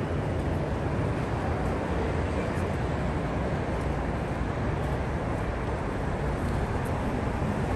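Steady road traffic noise under an elevated expressway: a low, even rumble of cars on the deck overhead and the street alongside.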